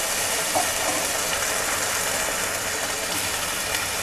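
Water poured from a bottle into a pan of frying vegetables, a steady splashing noise.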